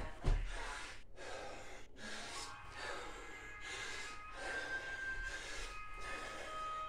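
A man breathing hard in repeated gasps and exhales from the exertion of burpees, with a heavy thump on the floor about a third of a second in.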